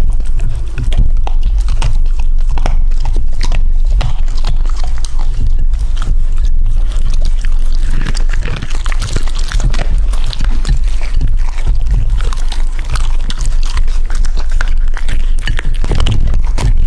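A husky and a puppy chewing and crunching cooked meat and bones right at a microphone: a dense, irregular run of sharp crunches and gnawing clicks.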